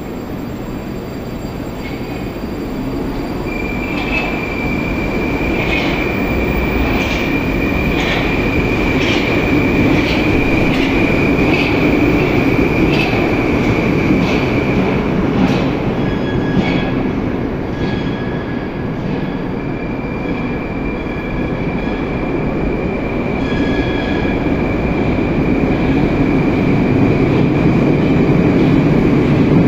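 Moscow Metro 81-765/766/767 'Moskva-2019' train running, heard from inside a car. A steady rumble grows louder, with a high, steady wheel squeal that drops out for a few seconds midway, and evenly spaced clicks a little more than one a second.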